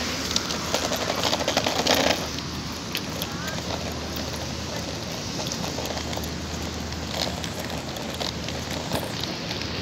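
Wet-street ambience: a steady low traffic rumble under an even hiss. A burst of rapid close clicks comes about half a second in and stops abruptly after about a second and a half.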